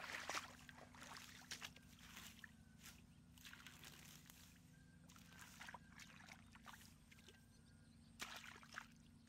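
Faint, scattered sloshing and squelching of hands and rubber waders in shallow muddy water and wet weeds as someone gropes through the mud by hand for fish. The splashes are loudest at the start and again near the end.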